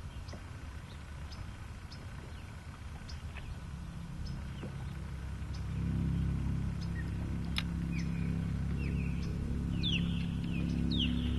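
A low, steady engine hum that grows louder about six seconds in, with a few short bird chirps near the end.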